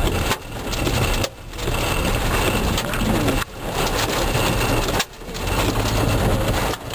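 Storm wind rumbling loudly over the microphone, a dense roar that drops off suddenly about four times and builds back up.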